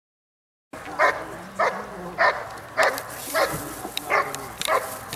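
A working dog barking repeatedly at the helper's hiding blind in IPO protection work, steady single barks about every 0.6 s, starting under a second in. This is the hold-and-bark at the blind.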